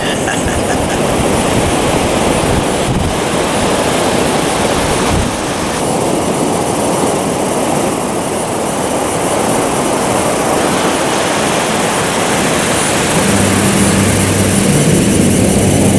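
Steady rushing of wind buffeting the microphone over breaking surf. Music with a low bass line comes in near the end.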